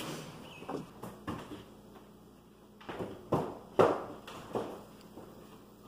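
A run of irregular knocks and thuds while flooring is laid, about seven in a few seconds, the loudest near the middle.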